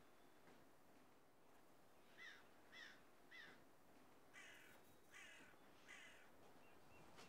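A crow calling faintly: three shorter caws about two seconds in, then three harsher, rougher caws, evenly spaced. A small bird twitters faintly near the end.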